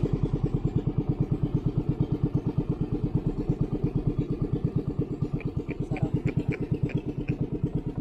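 Small boat engine idling, a steady, rapid, even putter. A few faint light ticks in the second half.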